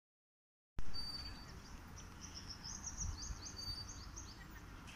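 Silence for the first second, then outdoor sound cuts in suddenly: small birds chirping in quick, high, repeated notes over a low background rumble.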